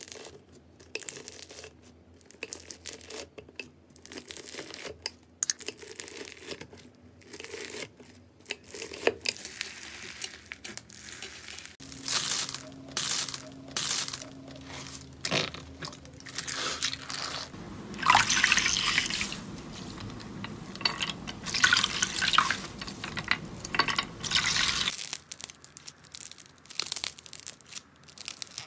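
Slime being cut, pressed and pulled apart by hand, including foam-bead slime: sticky crackling, crunching and wet squishing, with the texture changing every several seconds.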